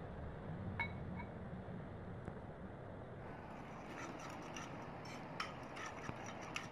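Metal spoon stirring a sauce in a small ceramic bowl, from about three seconds in clinking and scraping quickly against the bowl's sides. Two light clinks come about a second in.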